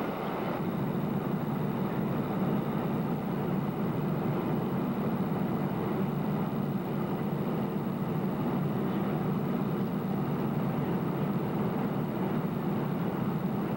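Airliner cabin noise in flight: a steady, even rush of engine and airflow noise, heaviest in the low range.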